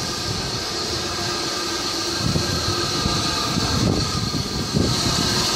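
LNER B1-class 4-6-0 steam locomotive running slowly into a station platform with its coaches, a steady rumble with a hiss above it that grows louder from about two seconds in as it approaches.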